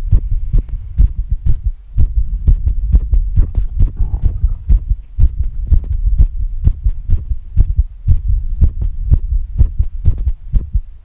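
Fast human heartbeat: a quick, even run of deep lub-dub thumps, with faint heavy breathing beneath it.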